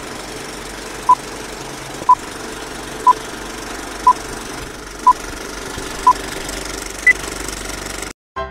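Old film projector running with a steady clatter under film-leader countdown beeps: six short beeps of the same pitch a second apart, then one higher beep. The sound cuts off suddenly near the end and music starts.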